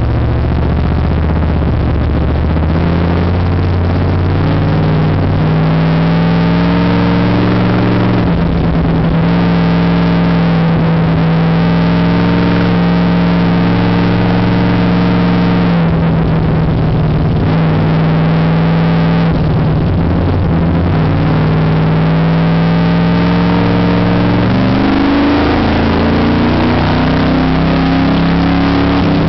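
Race car engine heard from inside the cockpit, running hard on track. The engine note falls off a few times and climbs again, rising steadily near the end.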